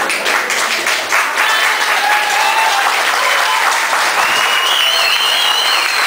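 Crowd applauding steadily, with high-pitched cheering calls rising over the clapping in the second half.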